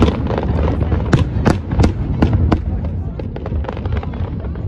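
Aerial fireworks exploding in quick, irregular succession: sharp bangs over a constant low rumble, coming thickly at first and thinning out after about two and a half seconds.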